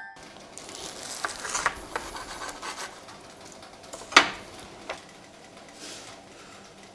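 Cleaver cutting through a crisp pan-toasted lavash roll: a rasping crunch of the crust, then one sharp knock of the blade on the slate board about four seconds in and a lighter one about a second later.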